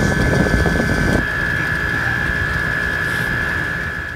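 Refrigeration condensing unit running: steady machine hum and fan noise with a constant high whine, the low rumble heavier in the first second, fading near the end.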